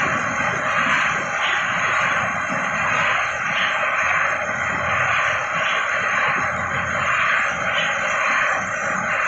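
Spinning rotor-style 'human washing machine' ride running: a steady whooshing rush that swells regularly, about once a second.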